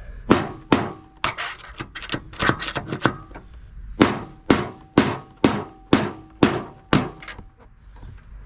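Hammer repeatedly striking a big screwdriver used as a punch to drive a stubborn, worn spindle bearing out of a John Deere L120 mower deck spindle housing: sharp metallic blows with a faint ring, irregular at first, then steady at about two a second before stopping.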